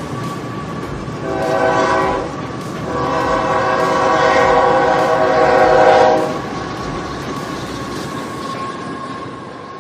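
Train running over a steel truss bridge, its wheels rumbling on the rails, while the locomotive horn sounds a short blast about a second in and then a long blast of about three seconds. The running noise fades toward the end.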